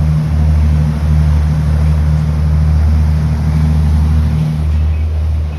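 Engine of a 36-foot Grand Banks Classic trawler running steadily under way: a constant low drone with a rush of water and wind noise over it.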